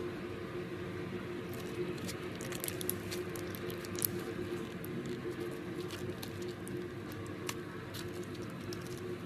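Hands stretching and squishing soft slime, making a run of small sticky clicks and pops as it pulls apart and folds. The clicks are thickest in the middle stretch.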